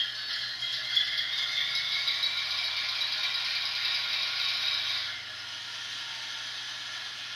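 Onboard sound unit of a model WDG-4P diesel locomotive playing its cold-start sequence: a loud rattling clatter that drops away about five seconds in, over a steady low engine idle.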